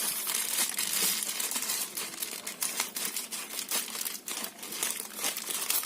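Parcel packaging being handled and opened by hand, crinkling and rustling in quick, irregular crackles.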